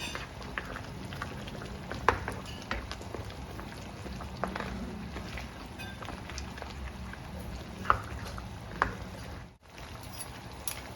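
A pot of pork caldereta stew bubbling steadily while it is stirred with a spoon, with a few sharp clicks of the spoon against the pot, the loudest about two seconds in and twice near the end.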